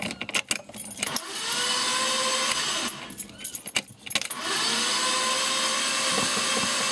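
Keys jingling at the ignition. Then the starter of a 1991 BMW 525i cranks the engine steadily for about two seconds, stops, and after a pause with a few clicks cranks again for about three seconds, without the engine catching. This is a no-start that the owner suspects is a fuel problem, a clogged fuel filter or a failing fuel pump.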